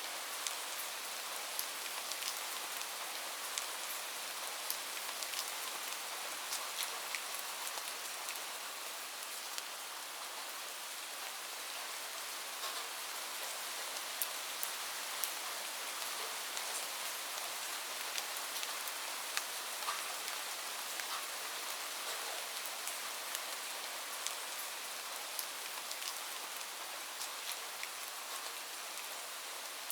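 Light rain falling steadily, a soft hiss with many individual drops ticking on a surface.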